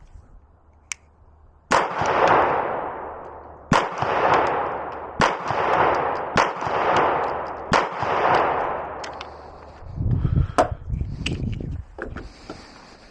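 Beretta pistol firing five slow, single shots about a second and a half apart, each shot followed by a long echoing tail. It is followed by a few lighter metallic clicks and handling noise.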